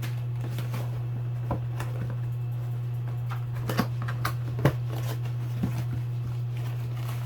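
Scattered light clicks and taps from handling a motorcycle tail light and its packaging, a few sharper ones around the middle, over a steady low hum.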